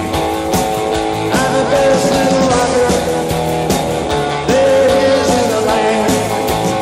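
Rock and roll music playing loudly and continuously.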